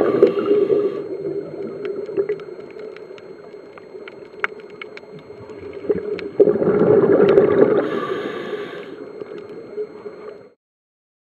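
Underwater audio of scuba exhaust bubbles gurgling in two surges, one at the start and another about six and a half seconds in. Between them runs a steadier, quieter water noise with scattered faint clicks. The sound cuts off shortly before the end.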